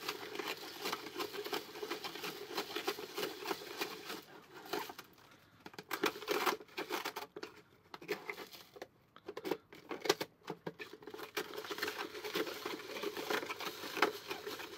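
Rice Krispies cereal tumbling and rattling inside a hand-turned plastic toy mixing cylinder, a dense, irregular pattering with two short lulls when the turning pauses.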